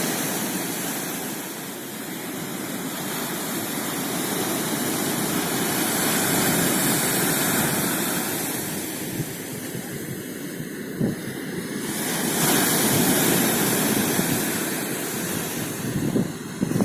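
Baltic Sea surf washing onto the shore, a steady rush that swells and eases twice. Wind buffets the microphone in gusts near the end.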